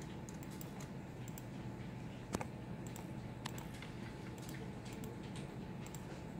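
Scattered light clicks of someone operating a computer, with one sharper click about two and a half seconds in, over a steady low office hum.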